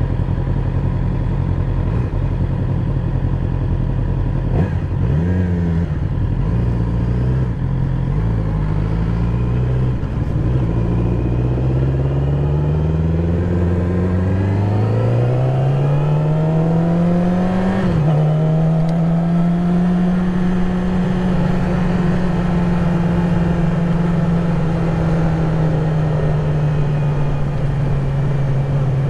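A 2020 Yamaha YZF-R6's inline-four engine idles with a few short throttle blips, then revs up in one long rising pull as the bike moves off. It drops in pitch at a gear change about eighteen seconds in and then runs steadily at cruising speed.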